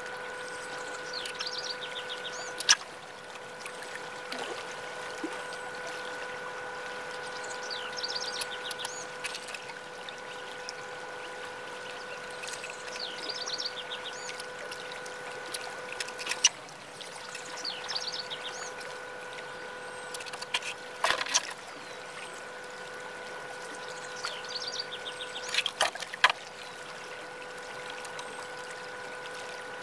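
Light scraping of a metal carving tool shaving clay from the inside of a small clay tube, with a few sharp clicks of tools knocking on the wooden board, the loudest about three seconds in. Behind it a steady high hum, which drops out briefly twice, and a short chirp that repeats about every five seconds.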